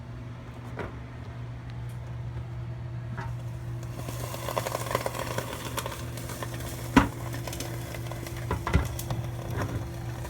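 Freshly cooked ribs sizzling and crackling in a NuWave countertop grill, over the steady hum of the running appliance. Two sharp knocks sound about seven and nine seconds in.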